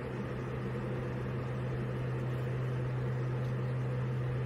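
Aircraft cabin noise in flight: a steady drone with a strong low hum under an even hiss.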